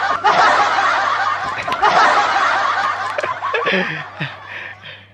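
A group of people laughing together, many voices at once, dying away over the last second or two.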